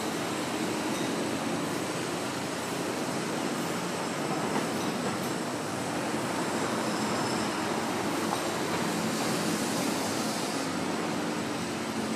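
Steady, continuous urban background noise, an even rushing rumble with no distinct events.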